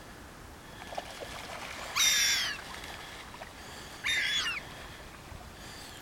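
Two harsh gull calls, each about half a second long and falling slightly in pitch, about two seconds apart, over a faint steady outdoor hiss.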